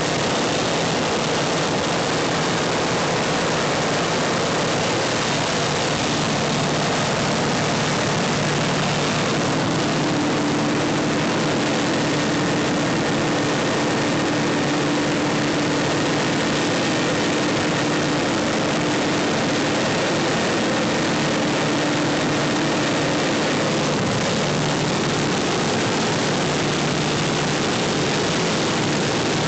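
Gazelle light aircraft's engine and propeller running steadily in cruise, heard from inside the cabin as an even drone with a hiss of airflow.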